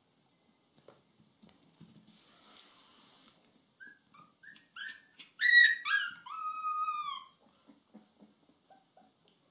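A husky puppy calling: about four short high yips, then louder, longer yelps, ending in a drawn-out puppy howl about a second long that dips in pitch at the end.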